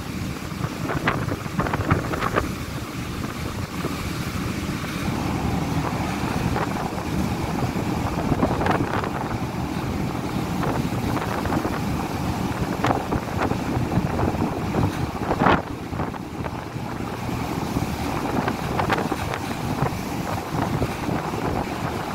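Gale-force wind buffeting the microphone on a ferry's open deck in irregular gusts, over a steady rush of wind and rough sea.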